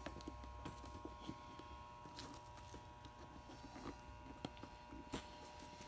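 Scattered light knocks and clicks from hands handling parts and tools at a workbench, irregularly spaced, over a steady faint tone and hum.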